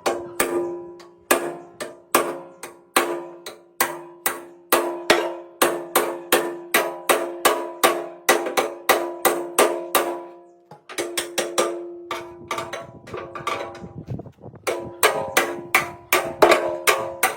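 Metal being struck repeatedly with a hammer, about two to three blows a second, each blow leaving a clear ring. A little past halfway the blows turn quicker and lighter for a few seconds, then heavier ringing strikes resume.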